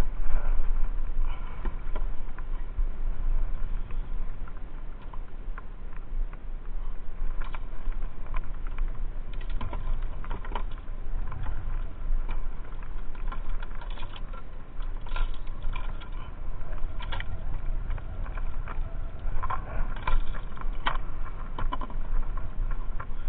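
Wind rumbling on the microphone of a fishing kayak on choppy water, with scattered light clicks and ticks that come more often in the second half.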